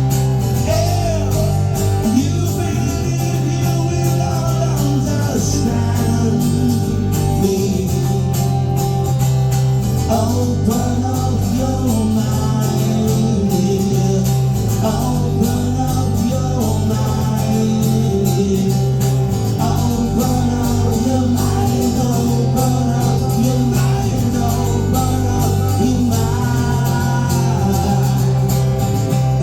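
A band playing a song: guitar over a steady bass line, with singing.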